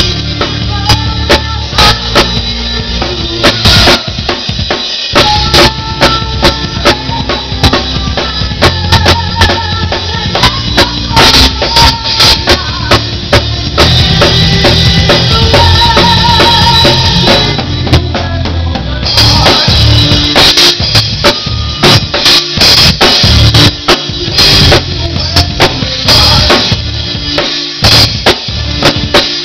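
Drum kit played hard in a live rock performance, close up: a dense run of bass drum, snare and cymbal hits over sustained pitched notes, loud throughout.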